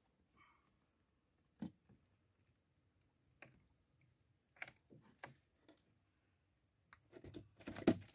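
Faint isolated taps and handling clicks while a hook is worked out of a mojarra over a plastic cooler, then a denser run of louder knocks and rattles in the cooler near the end.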